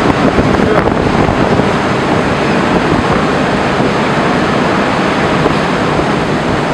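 Turbulent water rushing and churning in a canal lock chamber as it fills, a steady roar.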